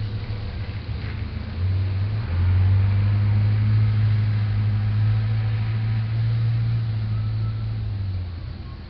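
A motor vehicle's engine running with a steady low hum that comes in strongly about two seconds in and fades away near the end, over a steady hiss.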